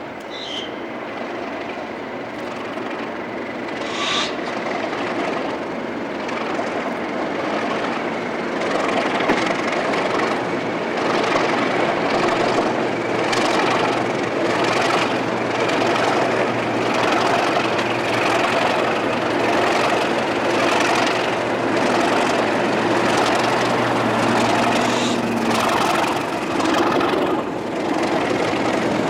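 Diesel locomotive engine running under power and growing steadily louder as the train approaches, with a steady low engine note and a rhythmic pulsing.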